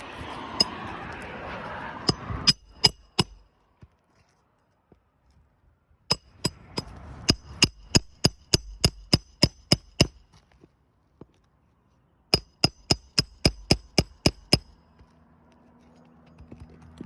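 Hammer blows on metal with a bright ring, in three quick runs of several strikes each at about three a second, during a roof shingle repair. A steady background hiss stops a couple of seconds in.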